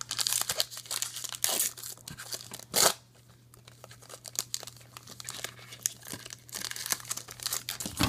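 Foil wrapper of a Topps Star Wars Galactic Files trading-card pack crinkling and being torn open by hand, with one loud rip a little before three seconds in. The crinkling quietens in the middle and picks up again near the end as the wrapper is pulled back off the cards.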